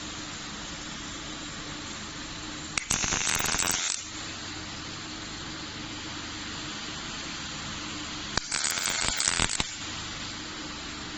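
Robotic welding torch striking two short weld bursts, each about a second long, crackling and sputtering over a steady background hiss.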